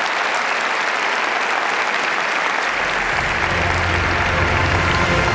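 A large theatre audience applauding steadily. Low music fades in underneath about halfway through.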